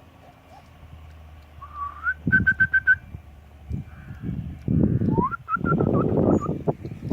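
Shiba Inu puppies whining in high, whistle-like squeaks: a rising whimper, then a quick string of about six short squeaks, then more whimpers. Louder rustling and shuffling fill the second half.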